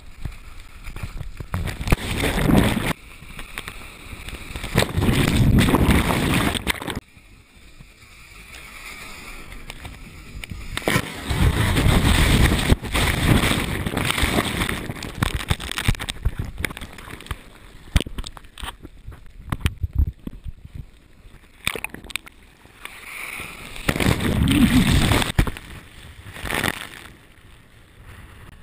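Breaking ocean surf and churning water washing over and around a GoPro in its waterproof housing, heard as several loud surges of rushing, sloshing water with quieter spells between.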